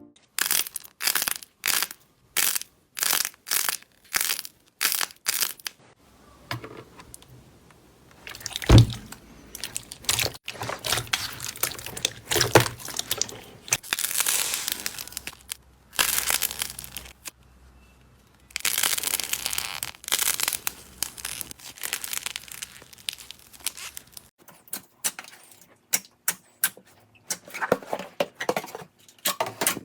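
Slime being handled close to the microphone: short squishing pokes about twice a second at first, then a long stretch of crackling, tearing and crunching, and near the end a run of quick clicks.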